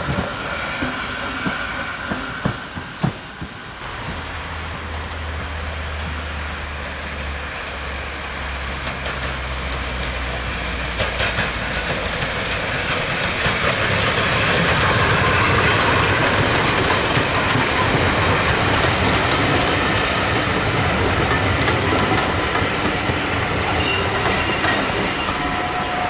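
A steam train's coaches clicking over the rail joints as they run away in the first few seconds. Then a small steam tank locomotive hauling a coach passes, its noise and wheel clatter building to the loudest point about halfway through and easing as it goes by.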